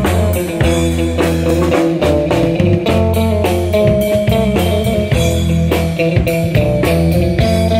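A band playing an instrumental passage: guitar melody over bass guitar and a drum kit keeping a steady beat.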